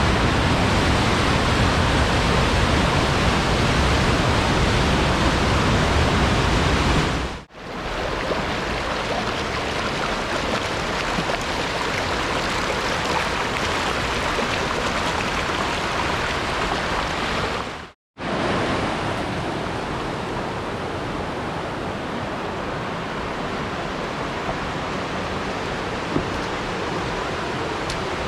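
Rushing water of a creek waterfall: a loud, steady rush. It cuts out briefly about seven seconds in and again about eighteen seconds in, and is a little quieter after each break.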